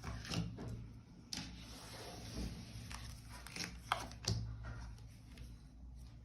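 Tarot cards being handled: soft rustles and light clicks and taps as cards are turned over and laid out, over a low steady hum.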